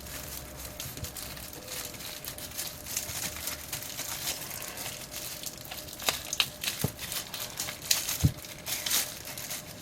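Crinkling and light clicking of a replacement phone battery and its plastic wrapping being handled, with a few sharper ticks of small parts being set down.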